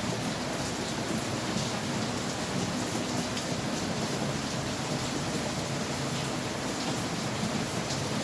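Steady rain falling, an even hiss with scattered sharper ticks of drops.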